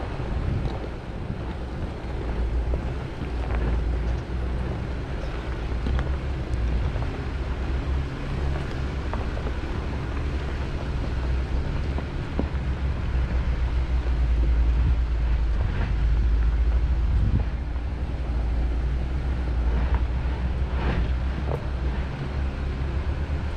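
Wind buffeting the microphone outdoors: a steady, uneven low rumble.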